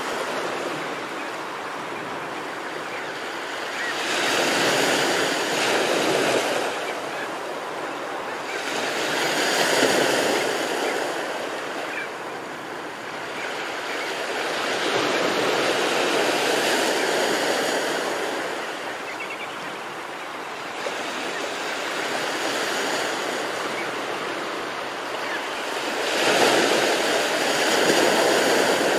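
Ocean surf breaking and washing up a sandy beach, a steady rush that swells into a louder surge every five or six seconds.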